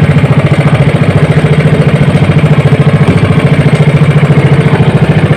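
Outrigger fishing boat's engine running steadily up close, with a fast, even pulse of about fourteen beats a second.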